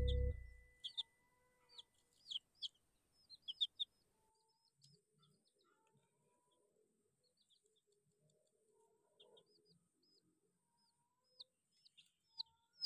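Young chicks peeping in short, high chirps, faint and scattered: a cluster over the first few seconds, then a few more near the end. Background music cuts off just at the start.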